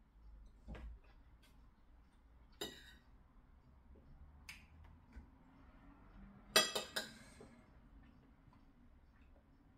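Cutlery clinking against ceramic plates: a few scattered single clinks, then a quick run of several clinks, the loudest, about two-thirds of the way through.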